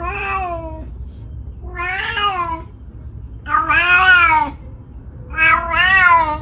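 Domestic cat meowing four times, each meow about a second long, rising and then falling in pitch.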